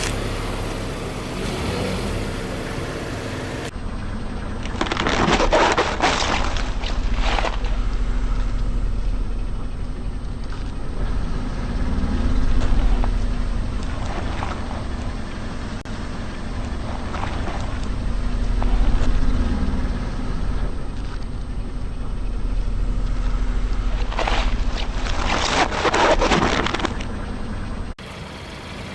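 A car's tyres rolling over objects and crushing them, with two spells of loud crunching, one several seconds in and one near the end, over the car's engine running low.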